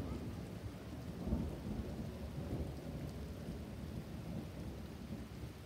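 Thunder rumbling over steady rain, with surges at the start and about a second in, then slowly fading toward the end.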